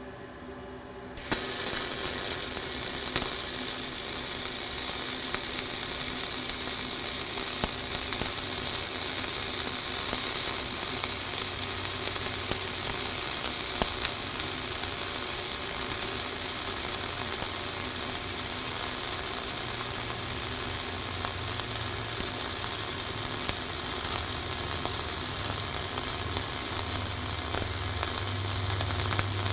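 Flux-core wire-feed arc welding: the arc strikes about a second in and runs on as a steady hiss with scattered sharp pops while a vertical fill pass is laid. A low hum joins in during the second half.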